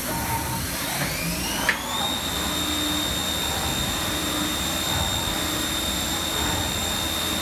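Spindle of a 1995 Fadal VMC 4020A CNC vertical mill running up to speed. Its whine rises in pitch for about two seconds, with a click partway up, then holds steady at one pitch.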